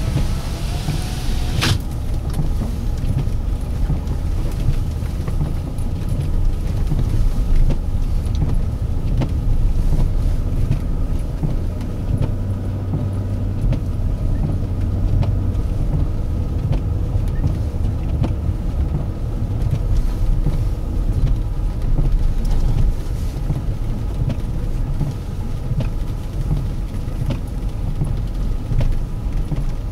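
Inside a moving car's cabin: steady low rumble of engine and tyres on a snowy road, with a sharp click about two seconds in and faint scattered ticks.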